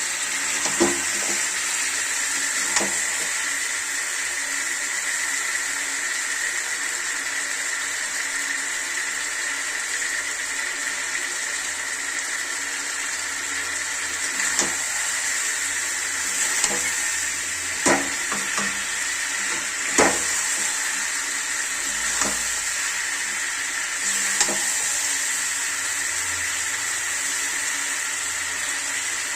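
Chicken cooking in a pan on the stove: a steady sizzling hiss, with a few sharp clinks scattered through it.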